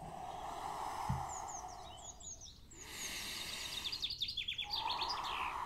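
A man breathing hard as he exercises: a long blow out through pursed lips, a breath in, then a second blow starting near the end. Small birds chirp and twitter in the background.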